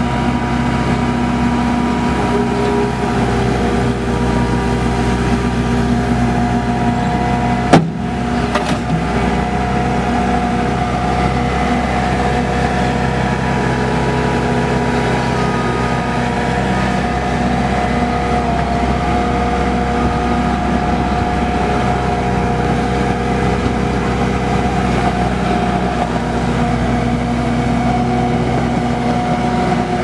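Bobcat S770 skid steer's V3800T four-cylinder diesel engine running steadily as the loader raises and lowers its bucket and drives about. There is one sharp knock about eight seconds in.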